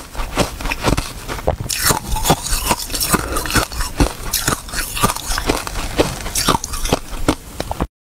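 Crunching and chewing ice with basil seeds in it: a dense run of crisp crunches that cuts off suddenly near the end.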